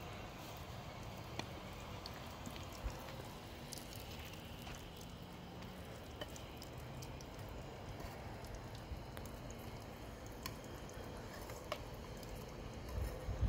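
Oil sizzling faintly in a frying pan as stuffed flatbreads fry, with scattered small pops and ticks. A short low rumble comes near the end.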